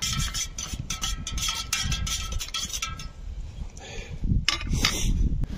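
A metal teaspoon stirring coffee in a stainless steel camp mug, clinking quickly and repeatedly against the sides with a ringing tone for about three seconds. The clinking then stops, and a few louder rustles follow.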